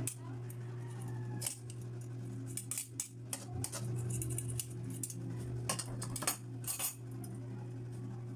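Metal tongs and a metal spatula clinking and scraping against an aluminium pan while tossing rice noodles, in irregular clinks. A steady low hum runs underneath.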